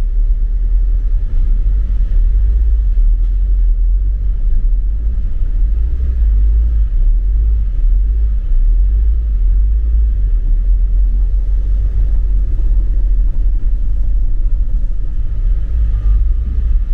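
Low, steady rumble of a campervan's engine and tyres as it drives slowly up a ferry's ribbed loading ramp, heard from inside the cab.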